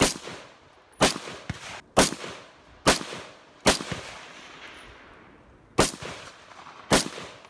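Seven gunshots fired one at a time, about a second apart with a pause of roughly two seconds after the fifth. Each crack is followed by a short reverberating tail.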